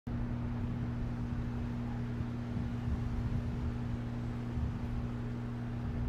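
Steady low mechanical hum at a constant pitch.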